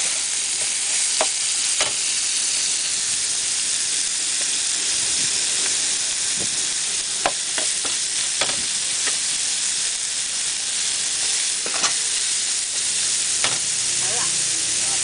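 Beef and vegetables sizzling steadily in a hot pan as they are stir-fried, with a metal spatula clacking and scraping against the pan every few seconds.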